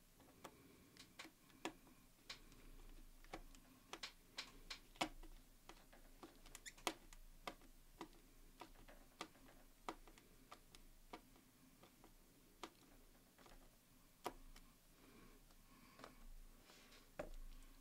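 Faint, irregular small clicks and ticks of a precision Phillips screwdriver turning screws into a laptop's metal lid hinge.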